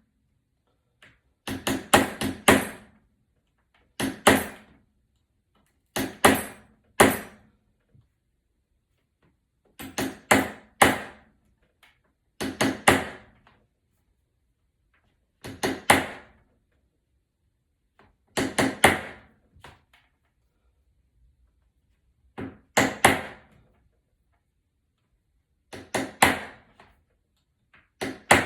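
A hammer striking a small screwdriver held against the inside lip of an aluminium iPad body, in quick groups of two to four sharp metallic strikes every two to three seconds, knocking a dent out of the body.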